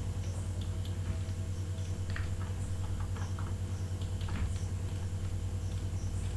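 Several faint computer-mouse clicks, spread irregularly over a few seconds, over a steady low electrical hum.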